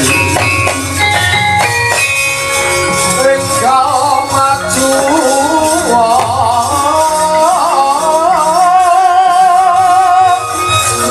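Javanese gamelan music with a female sinden singing: steady ringing tones and sharp percussive strokes at first, then about three and a half seconds in her voice comes in, wavering in long ornamented phrases over the ensemble.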